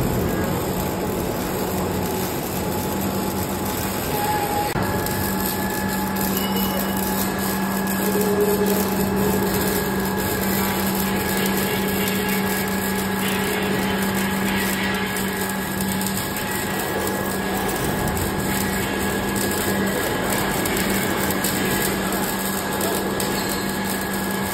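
Helix flight welding machine running with a steady hum while its welding arc crackles continuously, welding a spiral screw blade onto a steel pipe.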